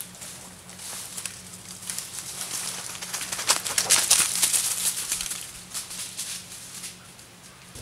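Footsteps crunching through dry leaf litter and twigs on a forest floor, a dense crackling and rustling that is loudest about halfway through and fades near the end.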